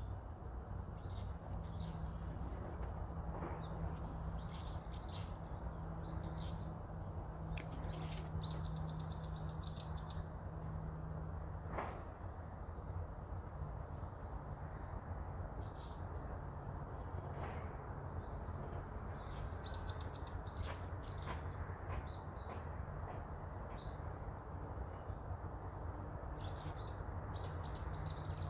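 Insects chirping in a steady high-pitched pulse, about two a second, with scattered bird chirps and a low steady hum underneath.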